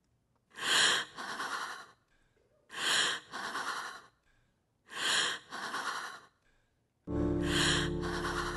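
Three loud, amplified breaths played over a sound system, about two seconds apart, each a short gasp followed by a longer breath out. About seven seconds in, music begins with sustained chords over a bass line.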